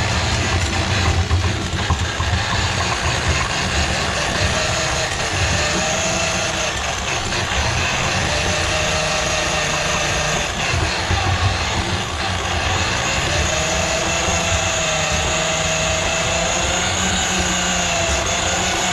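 Electric drum drain-cleaning machine running steadily, its spinning cable being fed into a kitchen sink drain plugged with grease. Its motor tone rises and falls slowly as the cable meets varying resistance.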